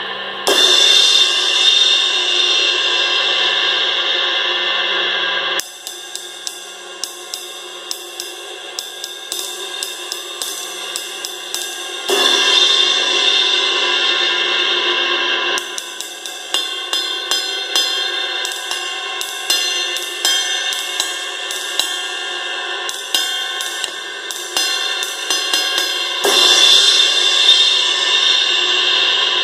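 Paiste 20-inch dark crash cymbals struck with a drumstick. Three full crashes are each left ringing for several seconds: one just after the start, one near the middle and one near the end. Between them come stretches of quick, repeated stick strokes on the cymbal.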